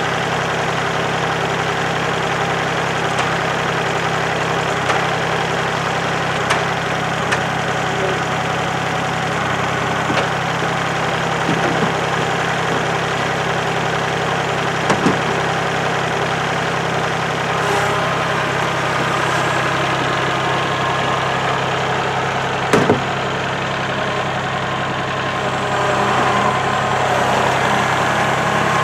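Kubota tractor's diesel engine idling steadily, with a few short clunks, the loudest about 23 seconds in.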